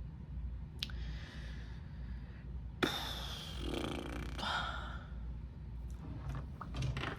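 A woman sighing: one long breathy exhale of about two seconds, beginning sharply about three seconds in. There are a few small clicks before it and a few more near the end.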